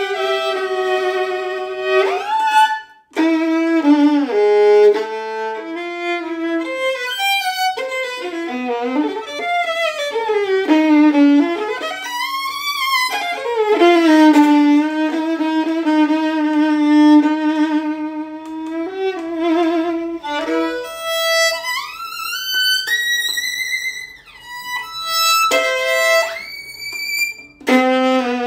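Solo violin played with the bow: a melody of held notes with wide vibrato, including a long sustained low note in the middle, and upward slides to high notes near the end.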